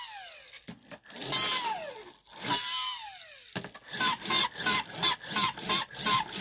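Electronic sound effects from a light-up Pikachu toy. First come three falling zapping sweeps, each a little over a second long. Then, from a little past halfway, a fast run of short chirps, about three a second.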